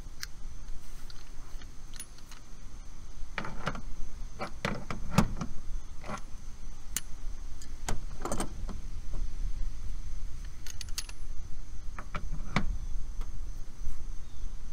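Metal hand tools clinking and knocking as a torque wrench with a crowfoot head and an adjustable wrench are handled and fitted onto a brass flare nut on a mini-split service valve. The clinks come scattered, a few at a time, over a steady low rumble.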